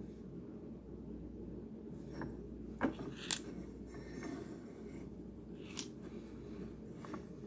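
A handful of light clicks and taps as a paint marker and a small diecast car body are handled on a wooden board, the two loudest close together about three seconds in, over a faint steady hum.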